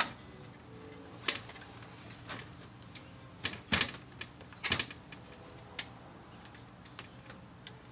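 Hands working on hoses and fittings at a newly installed aluminium radiator in a car's engine bay: scattered light clicks and knocks, with a cluster of louder ones between about three and a half and five seconds in.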